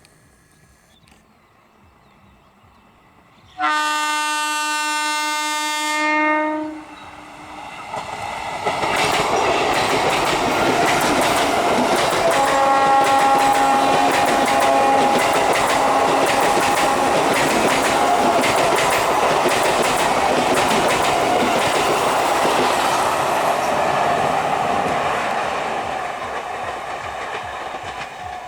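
Electric multiple unit (EMU) train sounding its horn for about three seconds, then running across a rail bridge: a long, loud clatter of wheels over the rail joints, the "cracking track sound", that builds up, holds and fades away near the end.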